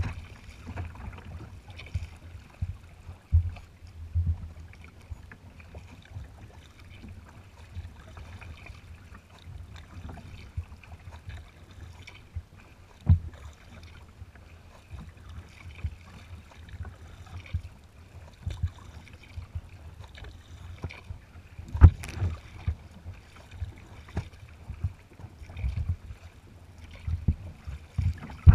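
Water slapping and splashing against a kayak's hull as it moves through light chop, heard as irregular low thumps through the hull over a steady wash, with a sharper knock in the last third.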